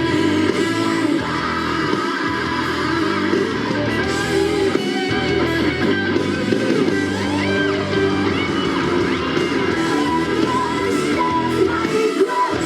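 Hard rock song playing, with electric guitars and a woman singing.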